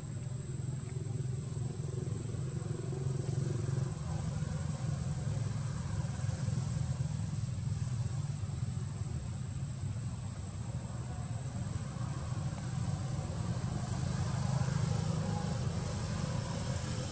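A motor vehicle engine running steadily: an even low rumble with no revving, and a thin steady high-pitched tone over it.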